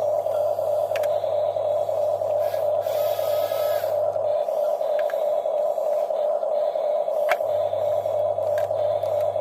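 Small electric motors of radio-controlled excavators whining steadily. A lower hum drops out about halfway through and comes back near the end, with a few sharp clicks.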